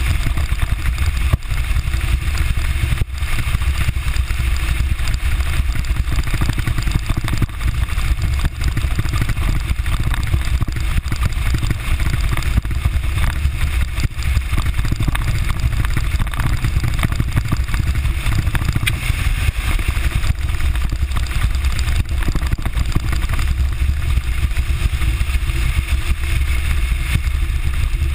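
Bass Tracker TX17 aluminium boat underway on choppy water: a steady low rumble of wind buffeting the bow-mounted camera's microphone, with a hiss of water and hull noise over it.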